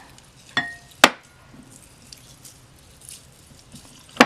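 Sharp knocks of hard objects on a desk during hands-on mixing of glue. There are two close together early, the first with a brief ring and the second the loudest, then faint soft handling sounds and one more knock near the end.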